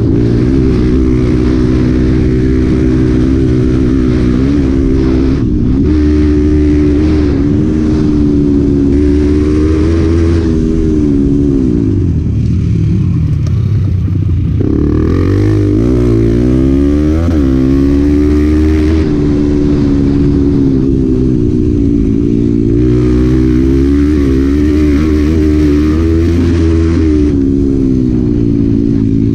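Honda Bros 125's single-cylinder four-stroke engine being ridden hard on a dirt trail, its revs rising and falling with the throttle and gear changes. The revs drop about twelve seconds in, then climb sharply again a few seconds later.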